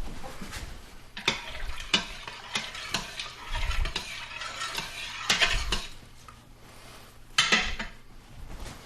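A utensil stirring liquid in the Instant Pot's stainless steel inner pot, with irregular clinks and scrapes against the metal and a few louder stretches of scraping.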